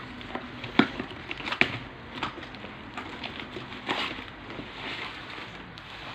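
Packaging being handled during an unboxing: irregular sharp clicks and taps with light crinkling, the loudest clicks a little under a second in and again near a second and a half and at four seconds.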